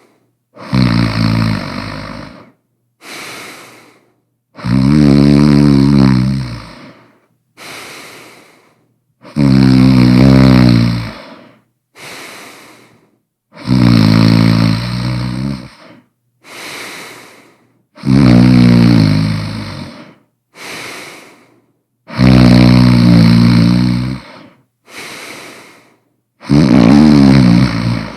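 A person snoring loudly and rhythmically: seven long, pitched snores, each about two seconds, coming about every four seconds, with a shorter, quieter breath sound between each pair.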